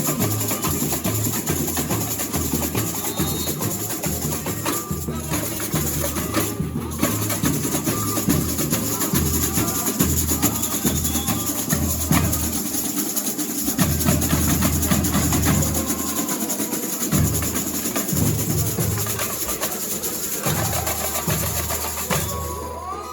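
Samba bateria playing at full strength: deep bass drums beat a steady pulse under a dense, continuous rattle of snare drums and shakers. The playing breaks off near the end.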